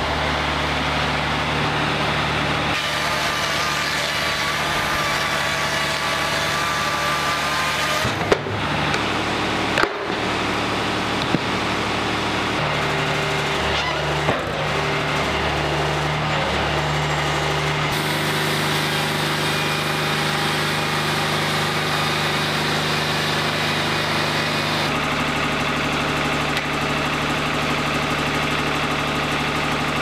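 Wood-Mizer LT40 hydraulic portable band sawmill running steadily, engine on, with a few short knocks and a few abrupt shifts in the sound as the clips change.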